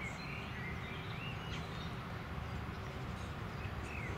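Outdoor ambience: small birds chirping in short calls a few times, over a steady low background rumble.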